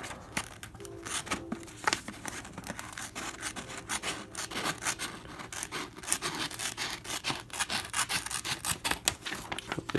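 Small spring-loaded scissors of a Leatherman Style CS multitool snipping over and over, a run of short sharp clicks and scrapes a few times a second. The scissors are worn and their return spring is weak.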